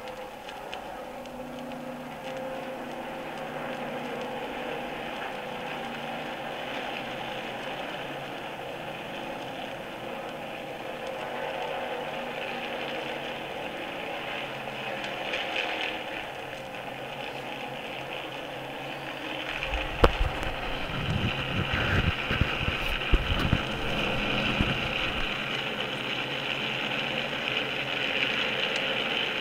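1964 NASCAR stock cars' V8 engines running at speed on the track, heard off an old phonograph record. The sound grows louder, and a deep rumble swells for a few seconds about twenty seconds in, with a single sharp click at the same point.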